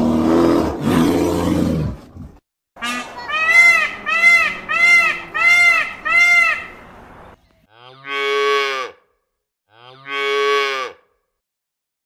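A brown bear's rough, low growl for about two seconds. Then an Indian peafowl (peacock) calls about six times in quick succession, each call rising and falling in pitch. Then a cow moos twice.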